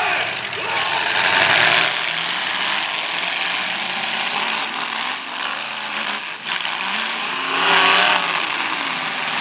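Several demolition derby cars' engines running and revving at once, with the noise surging louder about a second in and again near the end.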